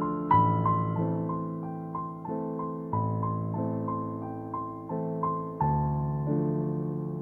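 Slow, gentle piano music: a melody of single notes, each struck and fading, over low held chords that change every second or two.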